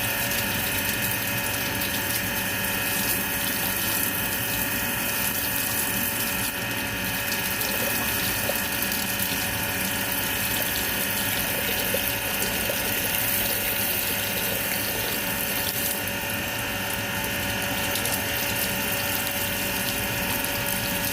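A motor-driven machine running steadily for the whole stretch: a constant hum of several held tones over a hiss of noise, with no change in speed.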